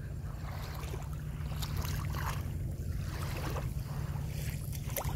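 Sea water lapping and splashing, with a steady low rumble underneath and a few soft swells of water noise.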